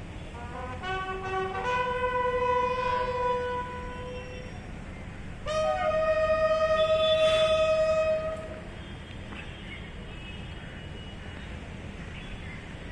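Bugle sounding a slow ceremonial salute call: a few short notes climbing in steps, a long held note, then after a pause one higher note held for about three seconds, ending about eight seconds in.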